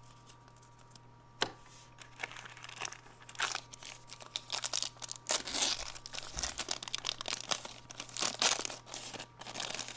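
Plastic wrapper of a 1992 Fleer baseball card jumbo pack crinkling and tearing as it is handled and ripped open, in irregular crackles that get louder about halfway through. A single tap comes first, about a second and a half in.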